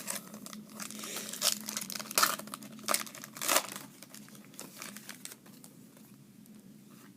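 A trading-card pack wrapper being torn open and crinkled. A run of sharp crackling rustles fills the first few seconds, then it settles into quieter handling.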